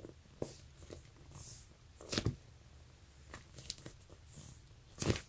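Soft handling noises from fingers squeezing and turning a large foam deer-cake squishy: scattered light taps and rubs, with two louder scuffs, one about two seconds in and one near the end.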